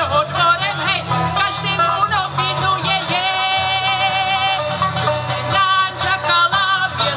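A woman singing live with acoustic guitar accompaniment; about three seconds in she holds one note for over a second with a wavering vibrato.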